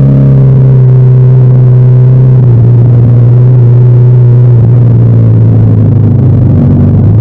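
Adventure motorcycle engine running steadily while riding a dirt road, heard loud and close from a camera mounted on the bike; its pitch drops slightly about four and a half seconds in.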